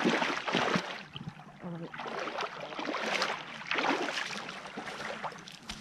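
Shallow sea water splashing and sloshing as people wade in from the beach, in irregular surges.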